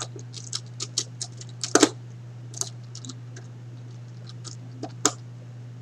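Short, sharp plastic clicks and taps of a wire being fitted into a screw terminal block: a quick run of them in the first two seconds, then a few scattered clicks, over a steady low hum.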